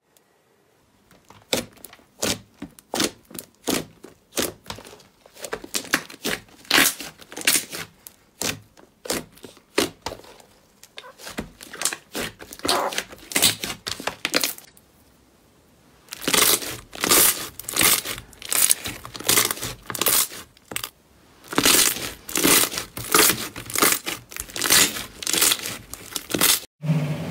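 Thick slime being pressed and kneaded by hand, its trapped air pockets popping in rapid runs of sharp crackles and clicks, with short pauses between the runs.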